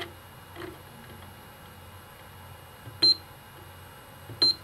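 Nitto Kohki delvo screwdriver controller: a couple of soft clicks from its rotary setting knob being turned, then two short, high electronic beeps about a second and a half apart as settings are confirmed on the knob.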